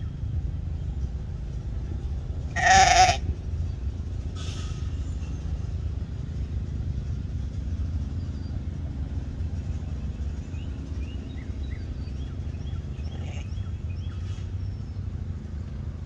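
A sheep bleats once, short and loud, about three seconds in, with a few fainter calls later, over a steady low rumble and faint high chirps.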